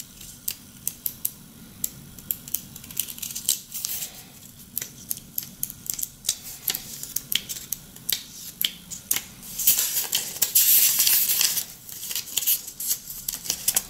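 Pages of a small paper instruction booklet being flipped through by hand: a run of crisp paper flicks and ticks, with a longer stretch of paper rustling about ten seconds in.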